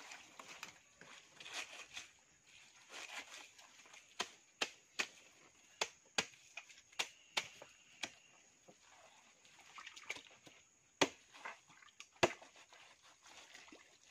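Machete blade chopping and scraping into a banana plant's fibrous stump and muddy roots: a series of irregular sharp strikes with rustling and scraping between them. The two loudest strikes come near the end. A faint steady high hiss runs underneath.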